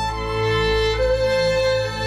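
Background music: slow, held notes on violin-like bowed strings over a low sustained bass.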